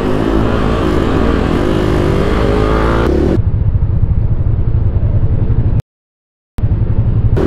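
Motorcycle engine running under way with wind rush on the microphone, its pitch rising as it pulls. About three and a half seconds in the sound turns into a muffled low rumble, cuts out completely for under a second, then comes back.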